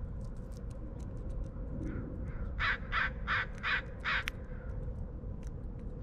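Crow cawing: two faint caws, then a quick run of five loud, harsh caws about halfway through, evenly spaced. Scattered faint ticks and a steady low rumble run underneath.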